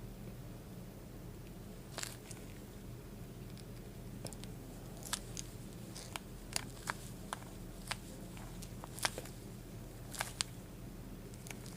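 Plastic splice-closure cap being screwed onto its base by hand: scattered small, irregular clicks and crackles, more frequent in the second half, over a low steady hum.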